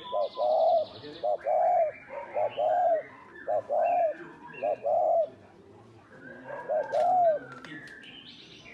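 Spotted dove cooing: six phrases, each of a few short coos and then a longer arched coo, with a pause before the last. Faint chirps of smaller birds sound higher up.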